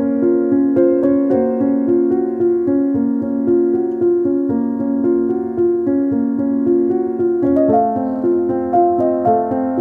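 Background music played on piano or electric piano: a simple melody of evenly paced notes, moving into a higher register about three-quarters of the way through.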